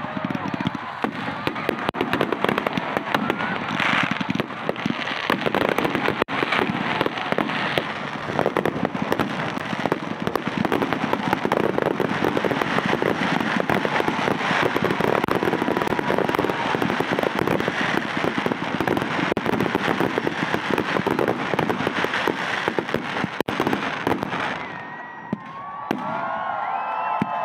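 Aerial fireworks display in a dense barrage: rapid, overlapping bangs and crackle from bursting shells. It thins out suddenly about 25 seconds in, leaving only scattered sound near the end.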